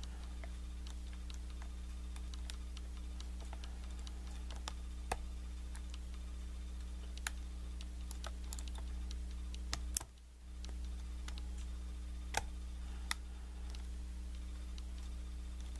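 Scattered small metallic clicks of a lock pick and tension wrench working the pin tumblers of a Kwikset knob cylinder, over a steady low electrical hum that drops out briefly about ten seconds in.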